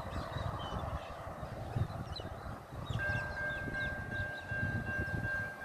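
Wind buffeting the microphone, with small birds chirping. About halfway through, a distant railway level-crossing warning bell starts ringing: a steady high ding that repeats a few times a second.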